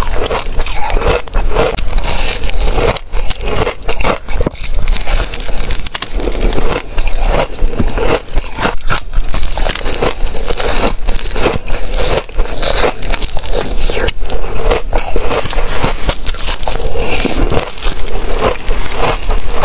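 Close-miked biting and chewing of white freezer frost, a dense run of crisp crackling crunches that goes on without a break.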